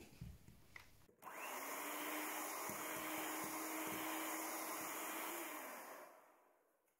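Electric hand mixer switched on about a second in, its motor running steadily as the beaters whir through a thin batter, mixing in flour. It then slows and fades out near the end.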